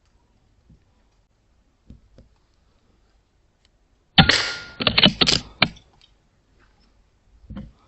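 A sharp, loud crack about four seconds in, followed by a quick run of four or five sharp knocks and clatters over the next second and a half, with a few faint clicks before.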